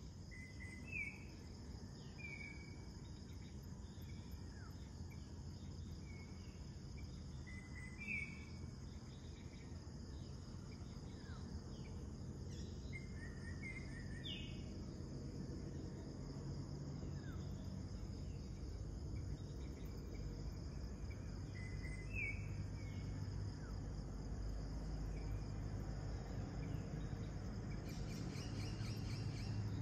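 Pre-dawn chorus of insects, crickets among them, shrilling steadily in high bands, with short bird chirps every few seconds. A low rumble underneath grows a little louder in the second half.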